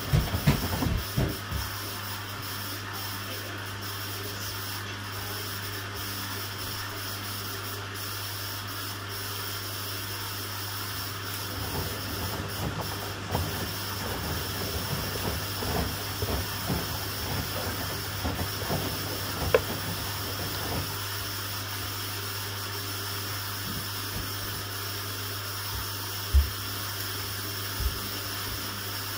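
Hoover Link and Samsung washing machines running mid-cycle: a steady low hum with an even hiss over it, and scattered clicks and clunks, a sharp one near the end.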